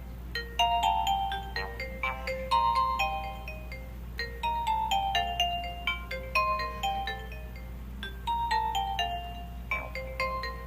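Nokia 2310 mobile phone playing one of its built-in ringtones: a melody of quick, bell-like notes whose phrase repeats about every two seconds, over a steady low hum.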